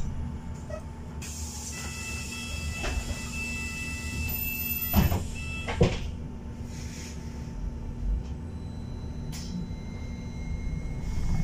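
Inside a New Routemaster diesel-electric hybrid bus: a steady low drivetrain rumble. About a second in a hiss starts with a high steady whine over it, and both end in two sharp knocks a little under a second apart, like the doors working.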